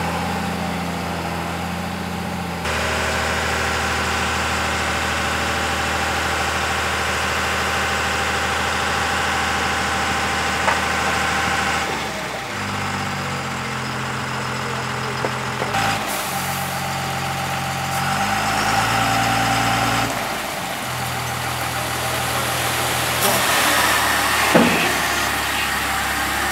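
Eicher Pro 5025 T tipper truck's diesel engine running with its speed stepping up and down several times as the hydraulic tipper body is raised and lowered. There are a few short knocks, the clearest near the end.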